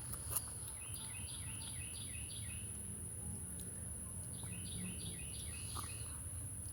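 A songbird singing two runs of quick, repeated falling notes, over a steady high whine and a low background rumble.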